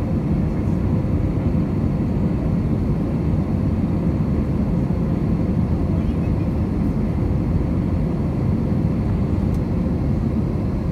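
Jet airliner's engines and airflow heard inside the passenger cabin during the climb after take-off: a steady, deep rumble that does not change.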